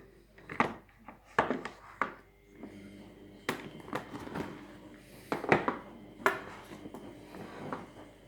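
A series of about eight sharp knocks and clatters, spaced irregularly, from hard objects being handled and set down.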